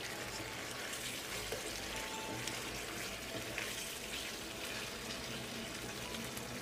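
Chicken pieces in a wet spiced masala sizzling steadily in a nonstick frying pan, a little water having just been added. A wooden spatula stirs through them with a few faint scrapes and ticks.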